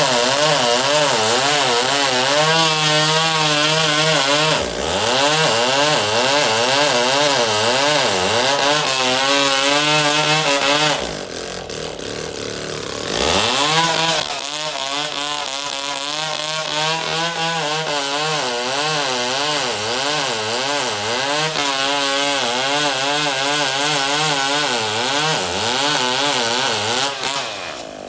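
Two-stroke chainsaw running at high revs, its pitch wavering up and down under load as it cuts wood. It falls back for a couple of seconds around eleven seconds in, revs up again, and drops off near the end.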